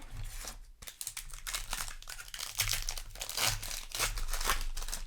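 Foil booster pack wrapper crinkling and tearing as it is handled and opened, a dense run of crackles that grows louder in the second half.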